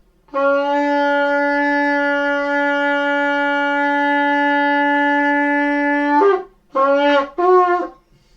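Shofar blown: one long steady note for about six seconds that rises in pitch as it breaks off, then two short blasts.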